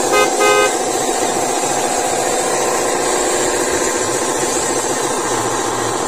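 A radio-controlled model truck's horn toots twice in quick succession, then a steady truck-engine sound runs on.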